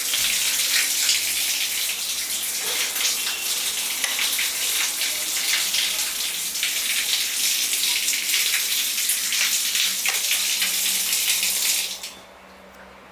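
Running water hissing steadily, starting and stopping abruptly after about twelve seconds.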